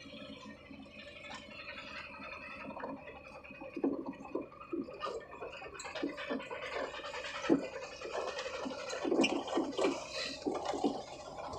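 Mahindra Jeeto mini truck heard from inside the cab, its engine running steadily under the load of towing another vehicle, with rattles and irregular knocks from the body and load, heavier from about four seconds in.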